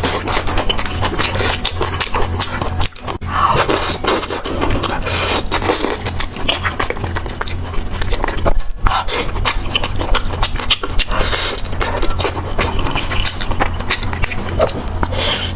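Close-miked chewing and crunching of fried skewered snacks: dense, irregular crackly mouth sounds over a steady low hum.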